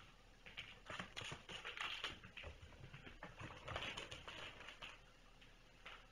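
Kittens playing and scrambling about, with a quick, irregular run of light scratching and tapping for about four seconds and one more tap near the end.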